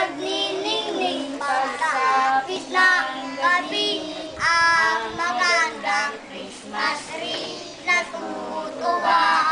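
A group of young children singing a Christmas carol together, in phrases.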